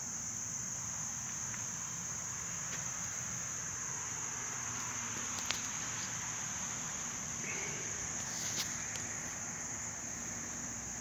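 Steady, high-pitched insect chorus with a couple of faint clicks.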